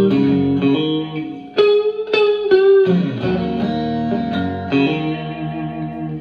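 Electric guitar played through a Fender Blues Junior tube combo amp: single-note phrases with a few struck chords about a third of the way in. The playing cuts off right at the end.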